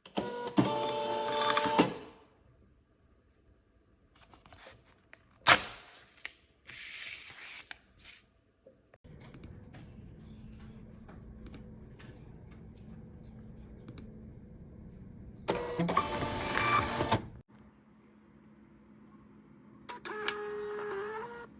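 CLABEL 221B thermal label printer running its feed motor as it prints and pushes out labels, in three short whirring runs of one to two seconds each, with a sharp click between the first two.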